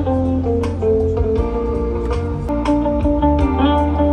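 Guitar music: plucked and strummed guitar notes and chords over a steady deep bass.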